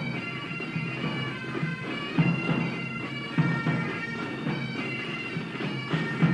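Massed pipe band bagpipes playing a tune over their steady drones, with a few low thuds among it.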